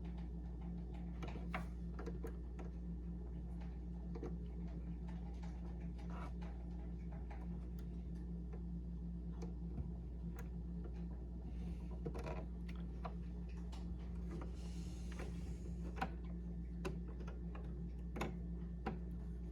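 Faint, irregular small clicks and taps of hands and thread working at a sewing machine's needle while it is being threaded, over a steady low hum. There is a brief soft rustle about 15 seconds in.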